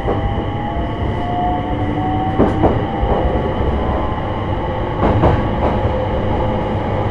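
Onboard running sound of a JR East E721 series electric train's motor car at speed: a steady rumble from the wheels and running gear with a faint whine that rises slightly and stops a little under three seconds in. Twice, a quick pair of clicks as the wheels cross a rail joint.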